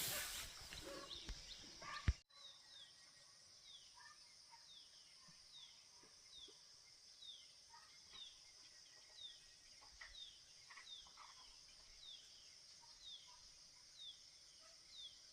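For about the first two seconds, a noisy scuffle of hunting dogs and a wild boar fighting, which cuts off abruptly. After that, a quiet outdoor background: a short high falling chirp repeated about every two-thirds of a second over a steady high hiss.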